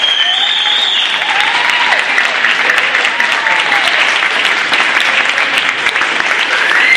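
A small group of people clapping steadily and cheering, with voices calling out over the applause.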